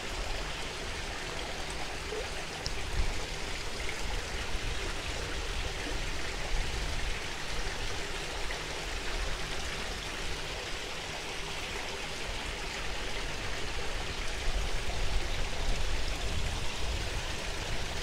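Small garden waterfall splashing steadily into a koi pond, with a low rumble of wind on the microphone.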